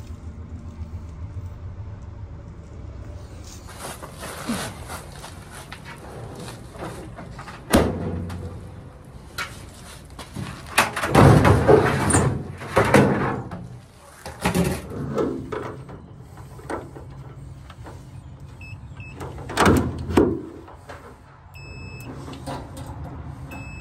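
Metal knocks, clanks and scraping as a Maytag dryer's drum and sheet-metal cabinet are handled during a tear-down, loudest about halfway through, with sharp knocks now and then, over a steady low hum.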